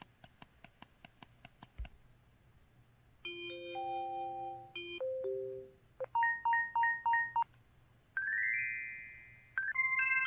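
IMB-1000 mobile phone system tones, synthesized by its Yamaha YMU765 64-voice sound chip. About ten quick clicks come in the first two seconds, then a string of short electronic chime jingles and a repeating beep pattern, one after another with short gaps.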